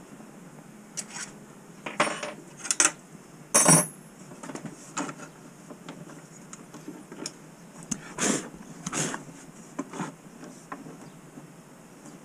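Metal-on-metal clunks and clatter from fitting the aluminium fence onto a Kobalt router table: a string of sharp knocks, the loudest about four seconds in, then scattered lighter taps as the fence is shifted into position.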